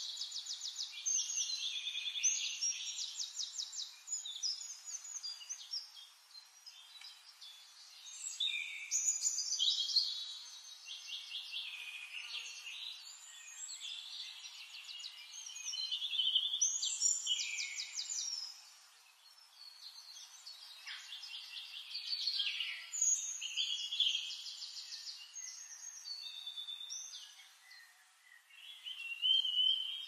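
Several songbirds singing together, with rapid trills and whistled notes overlapping. The louder song phrases come back about every six to eight seconds, and softer chirps fill the gaps between them.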